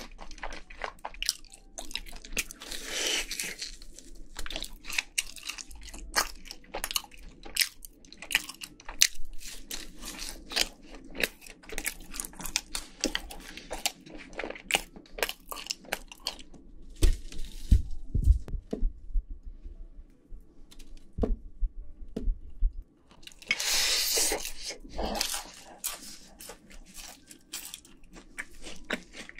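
Close-miked crunching and chewing of crispy fried chicken, a dense run of crackly bites and wet chewing clicks, with louder crunchy bites a few seconds in and again near the end.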